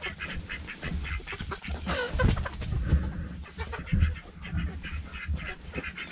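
Chickens and ducks calling as they feed, many short clucks and one longer call that falls in pitch about two seconds in, over a low rumble.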